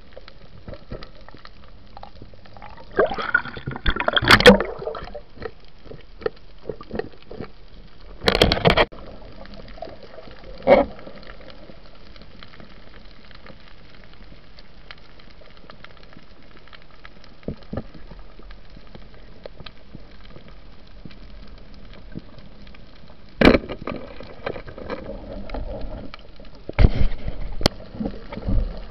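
Underwater sound over a coral reef at night: a steady faint crackle, broken several times by louder bursts of bubbling and knocking, the loudest about four seconds in and near the end.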